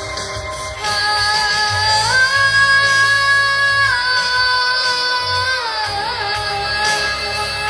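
A child singing over a backing track with a pulsing bass, holding a long high note about two seconds in, then sliding down in pitch around six seconds. The singer has a cold and a hoarse voice, yet the voice does not crack.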